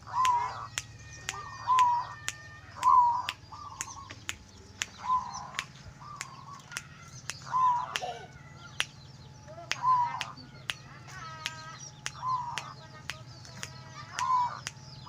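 Zebra dove (perkutut) cooing: short phrases of mellow notes repeated every second or two, with sharp clicks scattered throughout.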